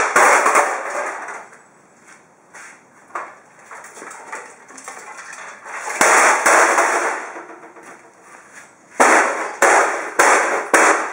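Parts of a broken Sony CD player's metal casing being smashed on a concrete floor: a crash with a short clatter at the start, another about six seconds in, then five sharp bangs in quick succession near the end.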